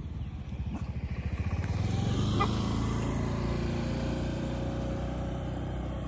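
Motor scooter passing along the road: its engine grows louder, is nearest about two and a half seconds in, then fades away.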